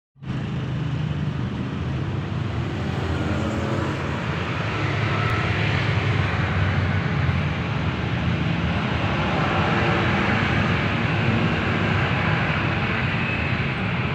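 A steady mechanical drone: a low engine-like hum under an even hiss, starting abruptly at the very beginning and holding level throughout.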